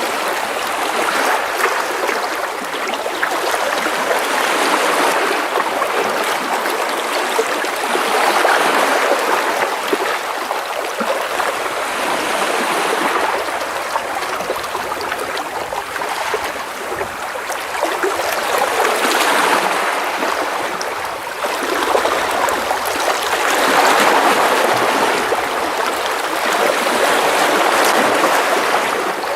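Gentle sea waves splashing and washing against rocks close by, a continuous splashing and trickling that swells and eases every few seconds as each small wave comes in.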